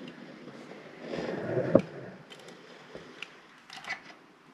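Handling noise from caulking a baseboard: a soft rustling scrape about a second in that ends in a sharp click, then a few faint ticks.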